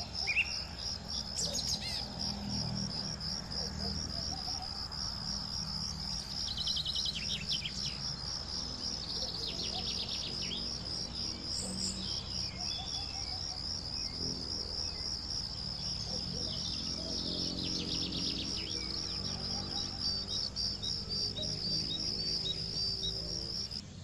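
An insect chirping in a steady, high, evenly pulsing trill, cricket-like, with a few short bird calls in between.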